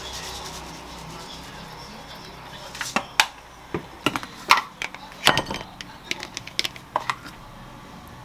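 Braised tofu simmering in a frying pan on a gas stove with a steady low hiss, then about three seconds in a run of sharp, irregular clicks and knocks of kitchen utensils against the pan and plate.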